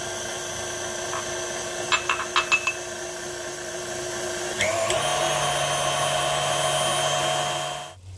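KitchenAid Artisan stand mixer motor running with its wire whisk beating eggs and sugar in a glass bowl, a steady whine. There are a few short clicks about two seconds in, and about four and a half seconds in the pitch steps up as the mixer speeds up. The sound cuts off just before the end.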